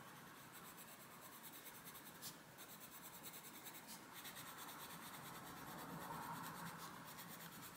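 Faint scratching of a Black Widow coloured pencil on paper as a bush is shaded in, steady and growing a little louder for a few seconds past the middle.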